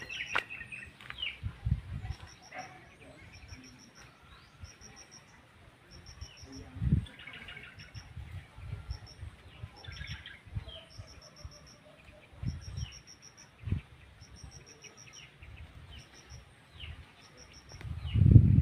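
Birds chirping in the trees, with a high, rapid pulsed call repeating about once a second throughout. A few dull low thumps come and go, the loudest near the end.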